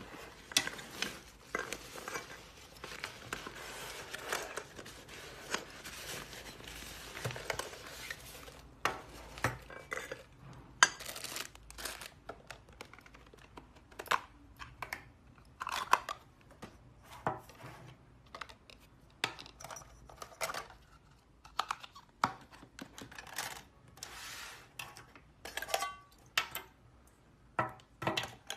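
Fabric drawstring storage sack rustling as it is pulled open and the nested cookware slid out. Then a long run of short clicks, knocks and clinks as the anodized aluminium pot and lid, plastic bowls and small parts of a camping cookware set are separated and set down on a table.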